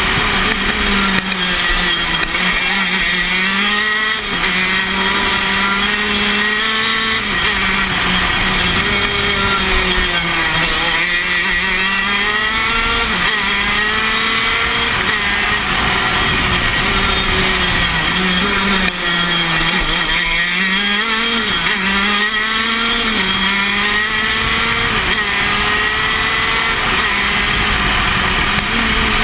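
125 cc two-stroke engine of a KZ shifter kart at racing speed on a lap, heard from onboard. Its pitch climbs under acceleration and falls off for the corners, with three deep drops.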